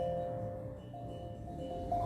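Steel drum notes ringing and slowly fading, with a couple of soft new notes struck as the playing quietens.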